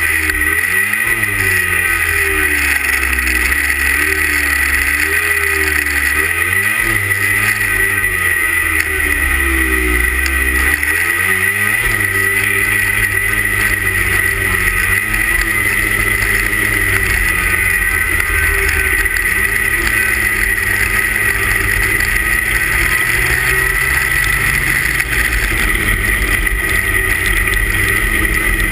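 A 340 cc two-stroke racing snowmobile engine heard from on board the sled, revving up and down again and again for the first dozen seconds, then running more steadily. A steady high whine runs under it.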